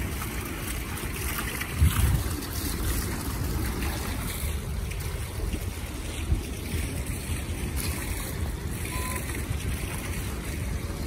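Wind buffeting a phone's microphone outdoors: a steady low rumble, with one brief thump about two seconds in.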